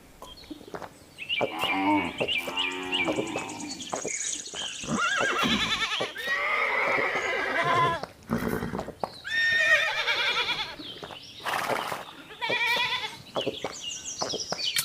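Farm animal calls, several in a row with wavering pitch, and sharp clicks between them.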